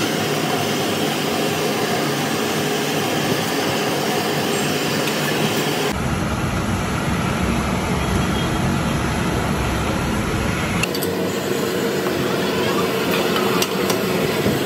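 Steady roaring rush of a gas burner under a large pot of boiling milky chai, its sound changing character twice, with a few light metal clinks near the end.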